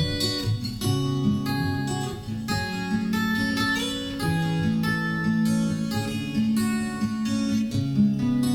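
Acoustic guitar playing chords in an instrumental passage of a song, strummed and picked in a steady rhythm.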